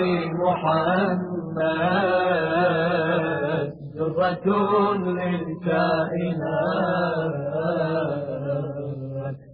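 Title music: a voice chanting long, wavering melismatic phrases with short breaks between them, over a steady low drone.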